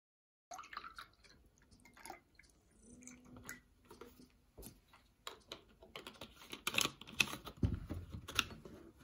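Scattered small clicks and knocks of things handled on a wooden tabletop, with a heavier thump near the end as a juice carton is set down beside a glass.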